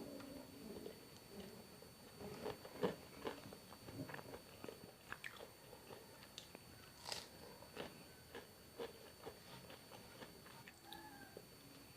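Close-miked mouth sounds of a person eating: irregular wet chewing and biting clicks, with a few sharper crunches.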